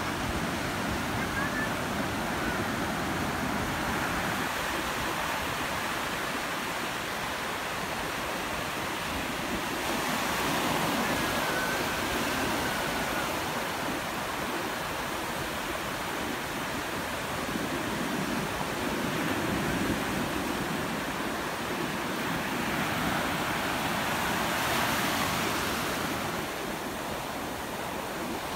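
Ocean surf breaking and washing over the shallows: a steady rush of water that swells louder several times as waves come in.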